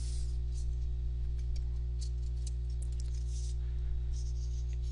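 Steady low electrical hum with a row of overtones, with faint scattered ticks over it.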